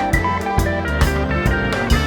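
Background music with guitar over a steady drum beat, about two beats a second.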